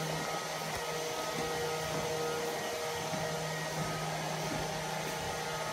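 Neato Botvac robot vacuum running, a steady hum over an even whir.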